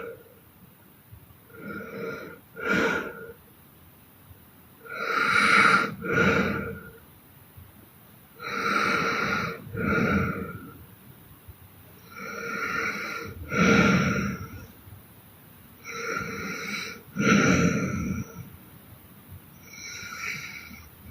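A young woman snoring hard in her sleep, a loud two-part snore about every four seconds with quiet breathing between.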